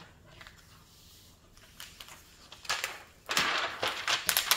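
Clear plastic cover film being peeled back from the glue-coated canvas of a diamond painting kit and pressed back down, crackling and clicking. It starts about two and a half seconds in, after a quiet stretch.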